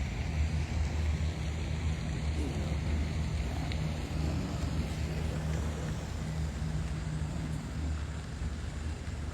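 Steady low rumble of a car idling, with no thunder from the lightning.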